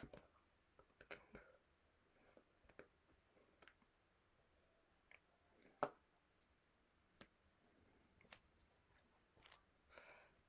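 Near silence, broken by scattered soft clicks and taps from a person's hands and mouth as she signs, with one sharper tap about six seconds in.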